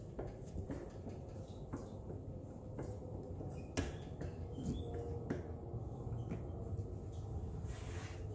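Scattered light clicks and knocks of metal parts being handled on a tractor PTO belt pulley assembly during reassembly, with the sharpest knock a little before halfway, over a low steady hum.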